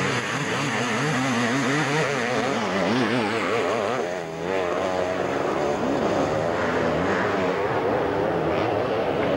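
Several motocross sidecar outfits' engines revving hard. Their pitch wavers up and down rapidly as the throttles are worked over the bumps.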